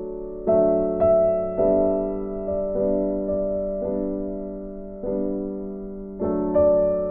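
Background piano music: slow chords struck roughly once a second, each one fading away before the next.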